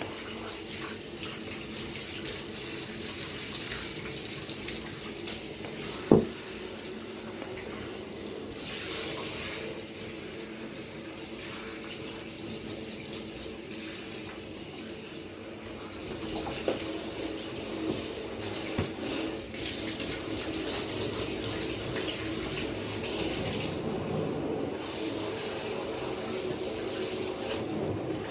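Water running steadily from a tap into a bath while a puppy is washed, with one sharp knock about six seconds in and a couple of fainter taps later.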